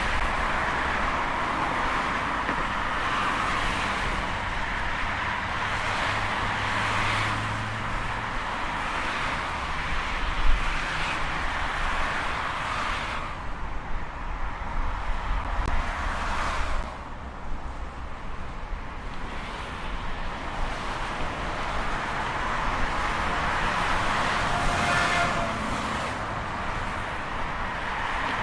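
Highway traffic: a steady rush of tyre and engine noise from vehicles passing in waves, with a lull about halfway through before the traffic builds again. Late on, one passing vehicle adds a brief whine.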